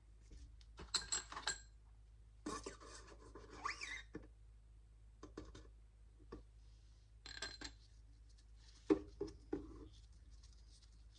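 Light metallic clinks and scrapes of 11 mm steel head studs being handled and threaded into the engine block by hand, coming in short clusters of clicks.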